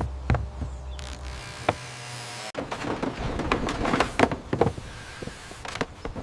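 Irregular knocks and clicks, denser after an abrupt cut about two and a half seconds in, with a low hum in the first second or so.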